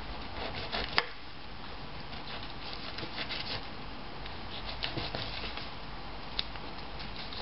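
Faint scraping and rubbing of a knife being drawn along a crappie's backbone to lift the fillet, the blade working against the fish and a wooden cutting board, with a few light ticks and one sharper click about a second in.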